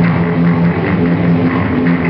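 Electric guitars playing a loud rock jam, with long held low notes.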